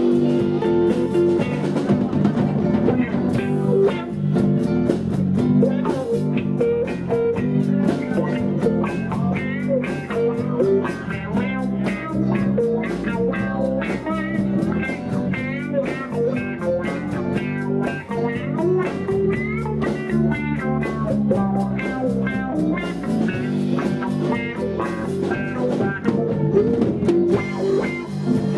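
Live blues band playing: electric guitars, bass and a drum kit.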